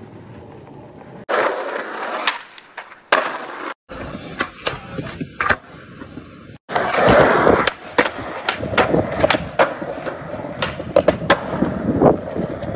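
Skateboard wheels rolling on concrete, with many sharp clacks of boards popping, flipping and landing. The sound changes abruptly a few times.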